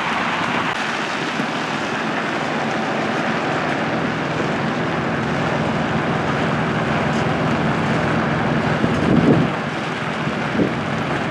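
Steady running of a heavy diesel truck engine from a road train, with a brief louder swell about nine seconds in.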